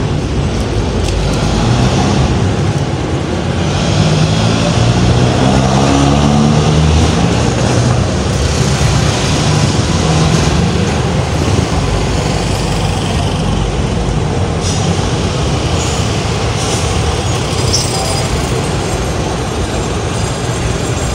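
Road traffic: a motor vehicle's engine running loud and close for several seconds, over a steady wash of street traffic noise.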